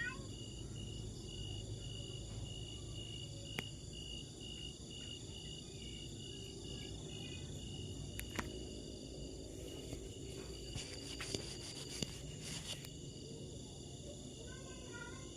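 Steady chorus of insects such as crickets, with a high note pulsing about two or three times a second. A few faint sharp clicks come in the second half.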